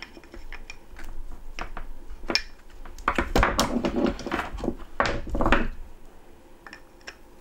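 Irregular clicking, scraping and knocking of small metal hand tools against the metal end housing of a Sinclair C5 electric motor, as a carbon brush that is stuck or worn down is pried at in its holder. The knocks are loudest and most frequent in the middle.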